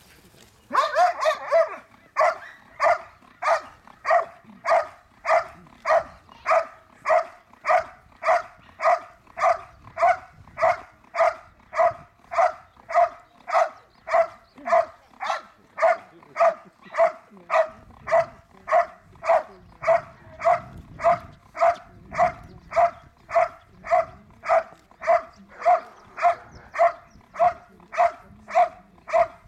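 A dog barking steadily at a helper in the blind during the IPO hold-and-bark exercise. A quick flurry of barks comes about a second in, then evenly spaced barks follow at a little under two a second.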